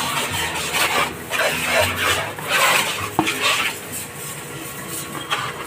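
Plastic basin scraping and rubbing on concrete as it is pushed and tipped over, in a few short scrapes, with one sharp knock about three seconds in.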